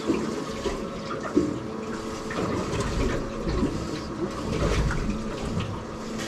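Water sloshing and slapping against a small boat's hull, over a faint steady hum, with a few light knocks.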